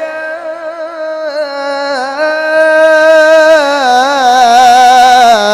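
A qari's high voice reciting the Qur'an in melodic tilawah style, holding the long drawn-out vowel of 'idhā' in one unbroken, ornamented melisma. It grows louder about two seconds in and steps down in pitch near the end.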